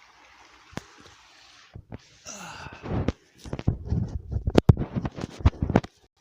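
A man's stomach growling: irregular low gurgles and rumbles with sharp pops, starting about two seconds in after a steady hiss and loudest in the second half, the sign of the stomach infection that has left him dehydrated.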